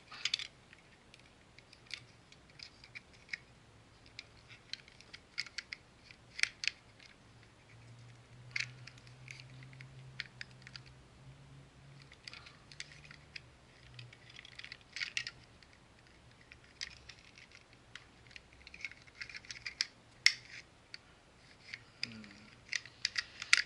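Hard plastic parts of a Combiner Wars Megatron figure and its DX9 add-on pieces clicking, scraping and knocking together as they are handled and fitted. The clicks come irregularly, with quiet gaps between them.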